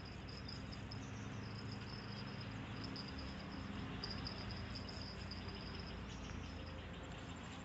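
Insects, likely crickets, chirping in a steady high trill that comes and goes in pulses, over a low rumble.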